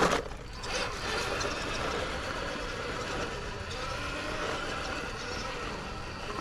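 Small electric RC rock crawler running, a steady motor and gear whir, with a sharp knock right at the start and a smaller one just under a second in.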